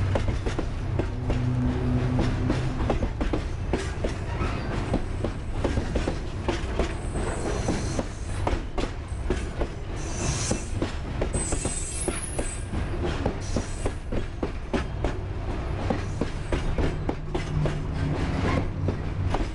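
Metre-gauge freight train's boxcars and hopper cars rolling past: a steady rumble of steel wheels with rapid clicks and clanks over the rail joints. Brief high-pitched wheel squeals come through a few times in the middle.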